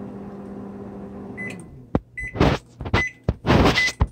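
Panasonic Genius Sensor 1250W microwave oven running with a steady hum that stops about a second and a half in. Its end-of-cycle beeps follow, a short high beep about every 0.8 seconds, four times, among several loud noisy bursts.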